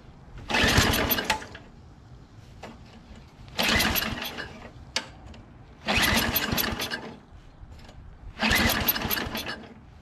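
Tecumseh Snow King 5 hp engine on a Craftsman 522 snowblower being pull-started cold on full choke after two years of storage: four pulls of the recoil starter, about a second each, the engine turning over without catching.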